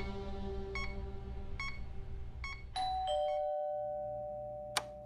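A patient monitor gives three short beeps a little under a second apart. Then a two-tone ding-dong doorbell rings, its notes ringing on and slowly fading, and near the end a single sharp click comes from the door latch.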